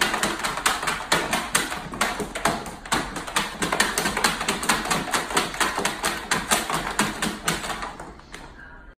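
A puppy's paws and claws tapping and scratching rapidly against the floor of a plastic storage tub as it digs, about four or five taps a second, fading out near the end.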